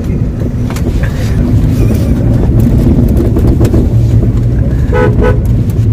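Toyota Vista's engine and road noise heard from inside the cabin while driving: a steady low rumble that grows a little louder after about a second.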